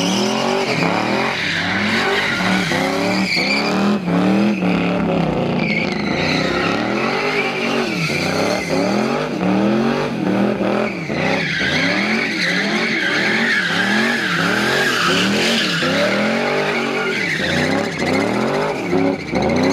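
A rear-wheel-drive coupe doing donuts: its rear tyres squeal and scrub continuously while the engine is revved up and let back down over and over, about once a second.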